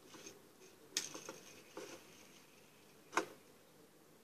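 Plastic hand crank of a Pie Face game being turned, clicking sharply about a second in and again, louder, about three seconds in, with a few softer clicks between.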